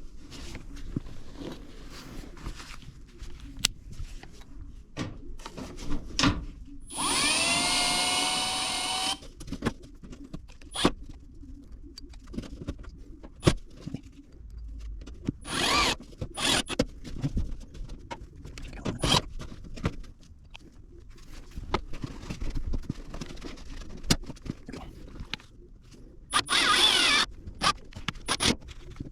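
Power drill running twice, first for about two seconds about seven seconds in and then for about a second near the end, its motor whine rising as it spins up. In between are scattered clicks and knocks of handling work on the duct.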